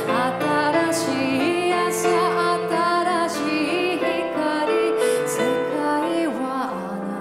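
A woman singing into a microphone, accompanied by a grand piano; her held notes waver with vibrato.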